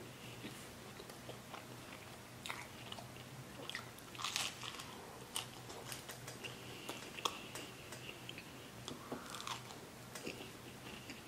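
Close-miked chewing and biting of pizza: wet mouth clicks and small crunches at irregular intervals.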